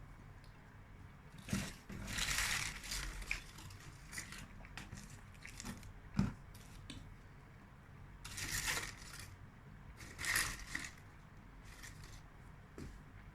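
Wrapper of a chocolate bonbon crinkling in several short bursts, with small clicks and a single knock in between.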